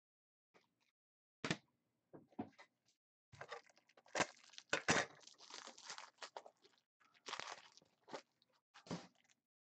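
Foil trading-card pack being torn open and its wrapper crinkled, a run of irregular crackling rustles with a few sharp ticks, busiest in the middle.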